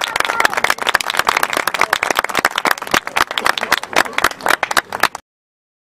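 Applause: many people clapping at once, an irregular run of sharp claps that cuts off suddenly about five seconds in.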